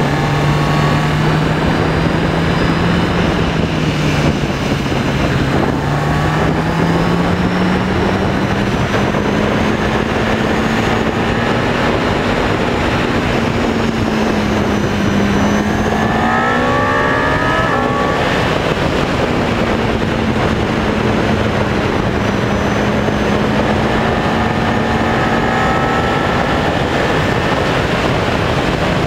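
Road vehicle engine running under way, its pitch slowly rising and falling with the throttle, with a short rev-up just past halfway. It sits over a steady rush of wind and road noise.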